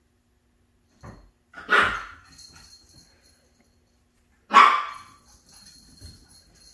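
A puppy barking twice, short high barks about three seconds apart, the second one louder.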